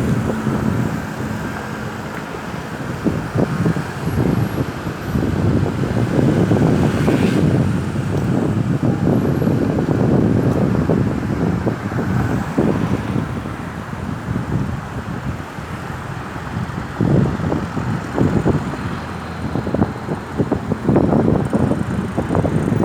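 Road traffic noise with wind buffeting the microphone, swelling and dipping unevenly.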